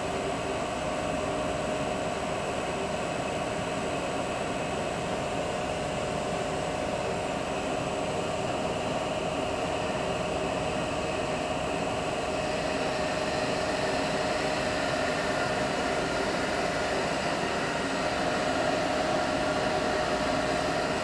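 Chinese CNC lathe turning a cast aluminium part under flood coolant: the spindle runs with a steady whine and hum, growing slightly louder and brighter about halfway through.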